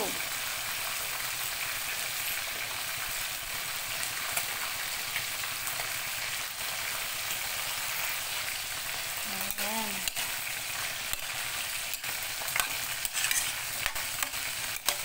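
Diced potatoes, carrots and mushrooms sizzling in a wok with a steady hiss, while a metal spatula scrapes and taps against the pan as they are stirred.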